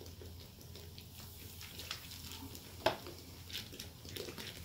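Faint fizzing and pattering of soda pop poured over corn in a 5-gallon bucket, with one sharp click near the middle.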